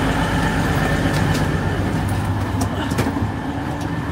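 Passenger train standing at the platform with its engines idling: a steady low hum with several held tones, and a few light knocks near the end.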